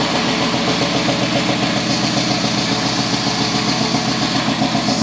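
A Ford Bronco's 302 small-block V8 with full-length headers idling steadily, with a fast, even pulse.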